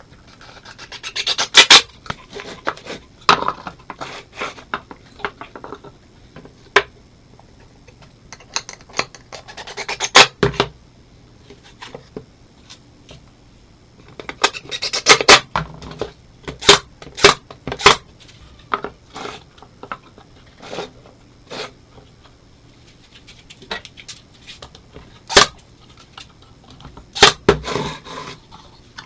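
Wood being worked by hand: short bursts of rubbing and scraping strokes with pauses between them, and a few sharp single knocks.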